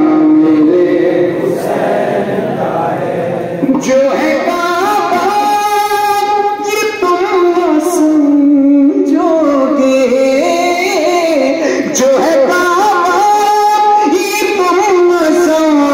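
A man's solo voice singing Urdu devotional verse into a microphone, drawing out long held notes that waver and slide between pitches, with brief breaths between phrases.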